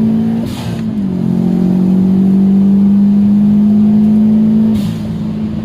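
Turbocharged flat-four of a Subaru WRX STI under hard acceleration, heard from inside the car. The engine note drops at a gear change about half a second in, climbs steadily through the next gear, then falls near the end. Each drop comes with a short rush of air, fitting the newly fitted blow-off valve venting.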